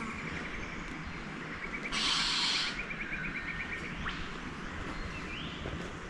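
Forest birds calling: a quick run of short, even notes lasting about a second and a half, and a brief rising note near the end. A short scuffing noise about two seconds in is the loudest sound.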